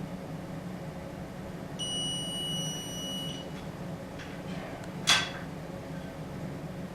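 A steady high electronic beep lasting about a second and a half, then a single sharp click about five seconds in, over a constant low hum.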